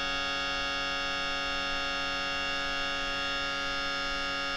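Steady accompanying drone holding one pitch with many even overtones, sounding alone between chanted verses of a devotional hymn.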